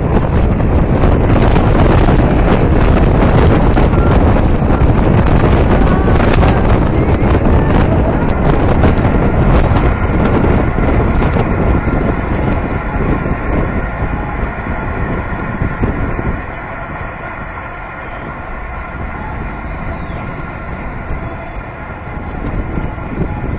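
Wind buffeting the microphone of a vehicle-mounted camera along with the car's road and engine noise while driving at speed. The noise eases about halfway through as the car slows in traffic, leaving a lower rumble with a steady hum.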